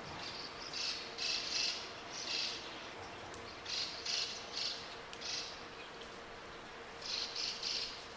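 Small birds chirping in short, buzzy, high-pitched bursts, often two or three in quick succession with pauses between, over a faint steady hum.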